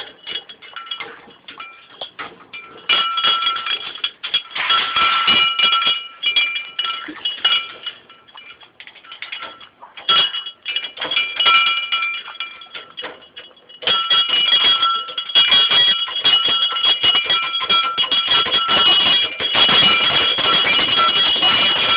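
Pet bird working at a ball toy, trying to get the ball out: a jangling, clinking rattle with a steady ringing tone, in bursts with short lulls, the longest and loudest stretch near the end.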